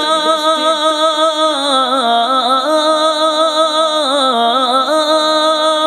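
A solo voice singing an Urdu naat (devotional song), holding one long note, with wavering ornaments about two seconds in and again near four seconds.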